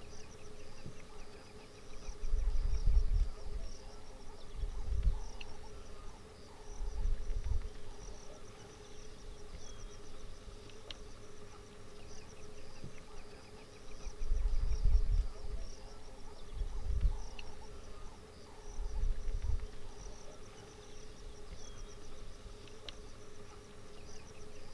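Steady chorus of insects, a thin high chirring over a lower steady drone. It is broken about six times by deep rumbles of a second or two, like wind on the microphone.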